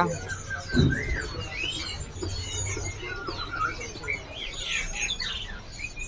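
Many caged songbirds chirping and whistling at once, in short overlapping calls that rise and fall. There is a brief low knock a little under a second in.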